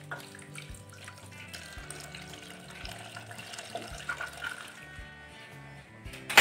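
Water pouring from a glass jug into an aluminium pot, over background guitar music. Near the end there is a short, loud burst of noise.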